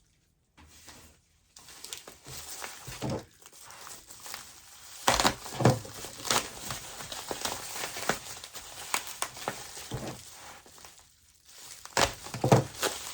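Packing material crinkling and rustling as mineral specimens are unwrapped by hand, with a few sharp knocks, the loudest around five to six seconds in and again near the end.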